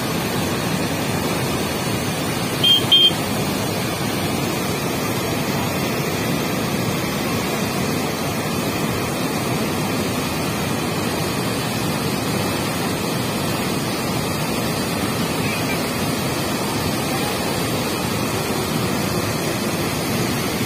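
Flood water rushing through the open spillway gates of a dam, a steady, even roar. About three seconds in, two short high beeps sound over it.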